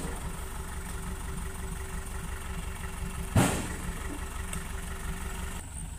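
4x4 engine idling steadily, with one sharp, heavy thump about three and a half seconds in.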